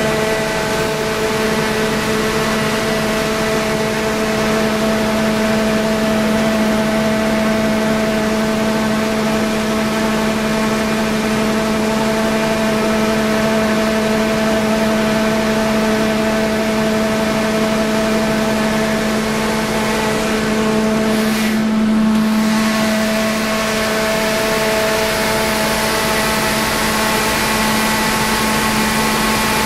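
Onan 60 kW generator set's Ford engine running on gasoline at a steady governed speed, a steady hum with several held tones. About two-thirds of the way through, one of the tones drops out briefly.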